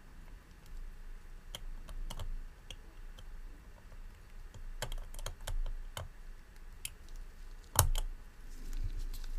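Small, irregular clicks and taps of a watchmaker's screwdriver on a tiny clamp screw and the metal movement holder as the screw is seated and turned in. The loudest click comes near the end.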